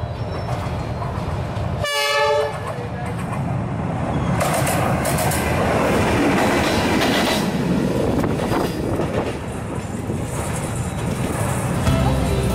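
D19E diesel-electric locomotive running light past at close range. It gives one short horn blast about two seconds in, then its engine rumble and the rattle of its wheels on the rails build up loudly as it goes by.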